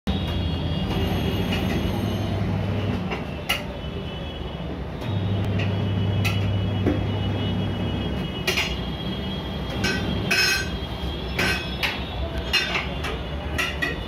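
Tyre-changer machine's electric motor humming in two runs of about three seconds as the turntable spins the wheel, then a string of sharp metal clinks and taps from a tyre lever working against the steel wheel rim.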